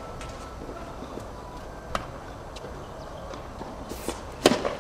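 A tennis racket strikes the ball on a serve near the end, a loud sharp crack. About two seconds in there is a single fainter tap.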